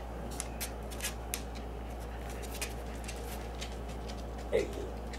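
Quiet room with a steady low hum and scattered light clicks, and a short voiced sound about four and a half seconds in.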